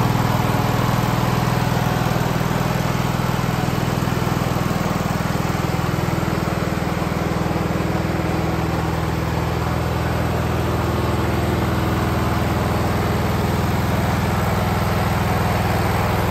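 Kohler engine of a Cub Cadet LT1045 lawn tractor running steadily at an even speed.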